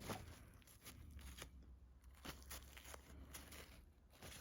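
Near silence with a few faint, scattered clicks and scrapes as the small metal parts of a disassembled folding knife are handled.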